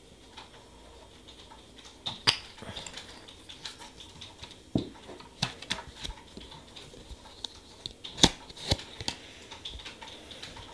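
Light clicks, taps and scrapes of nail-stamping tools on a metal stamping plate as polish is brushed onto the plate and the excess is scraped off. The loudest clicks come about two seconds in and about eight seconds in.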